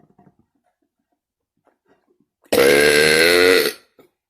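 A single long, loud burp, lasting just over a second and starting about two and a half seconds in, its pitch wavering slightly.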